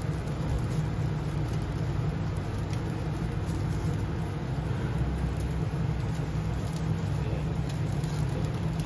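Steady low rumble and hiss of a commercial gas yakitori grill running with its burners lit and charcoal burning on it, with a few faint scattered ticks.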